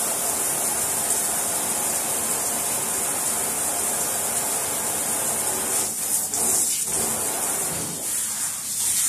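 Water running from a shower into a bathtub: a steady hiss that briefly dips twice near the end.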